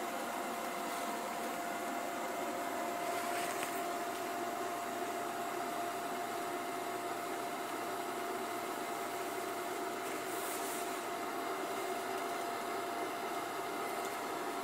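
A 12-volt electric bilge blower (100 mm, five-blade fan) running steadily, a constant rush of air with a steady hum, as it blows up an inflatable pylon.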